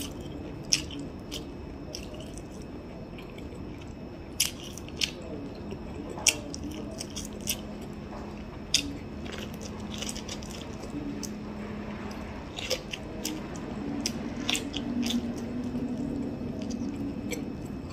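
Close-up biting and chewing of sweet corn on the cob: teeth pulling kernels off the cob with sharp, separate crunchy clicks every second or two, with chewing between them.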